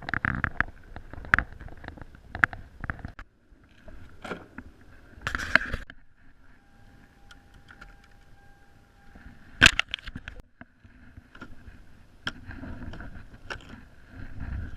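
Scattered knocks, clicks and rustles of gear on a fishing kayak, with water sounds, and one sharp knock about ten seconds in.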